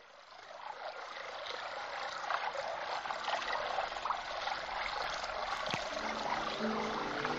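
Running water, a steady trickling rush that fades in and grows louder. Soft sustained music notes come in about six seconds in.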